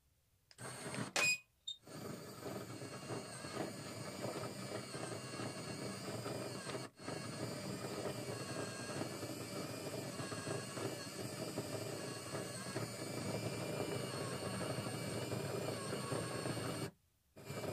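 Small DC electric motor of a homemade toy tractor running, with a steady whir. There is a loud click about a second in. The whir cuts out briefly a couple of times and stops for about a second near the end.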